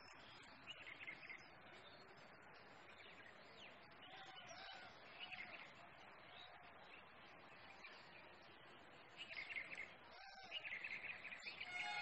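Faint bird chirps and short calls over steady outdoor hiss: a few chirps about a second in, a string of short curved notes in the middle, and more chirping near the end.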